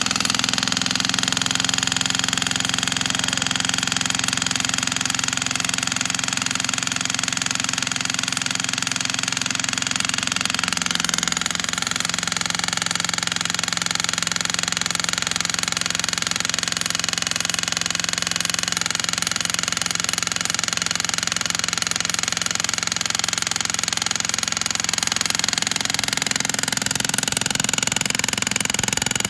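Jackhammer with a wedge-like bit hammering continuously into a check in a large firewood round. The wood does not split.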